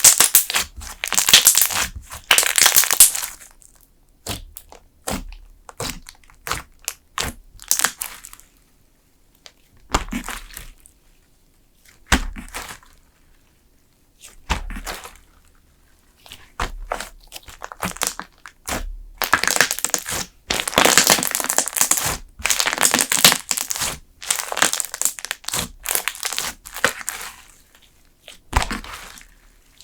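Thick slime being pressed and squeezed by hand, crackling and popping as trapped air bursts. The crackles come in dense runs at the start and again about two-thirds of the way in, with scattered single pops between.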